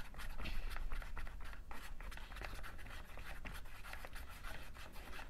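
Wooden craft stick stirring and scraping in the cells of a plastic ice cube tray, mixing dish-soap and cornstarch finger paint: quick, irregular scratchy strokes.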